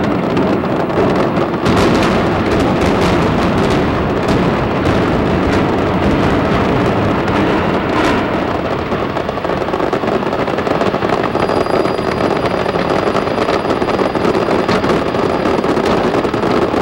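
Building implosion: a rapid series of demolition explosive charges on the arena's steel beams cracking like gunfire over the rumble of the domed arena collapsing, with fireworks crackling above the dust cloud.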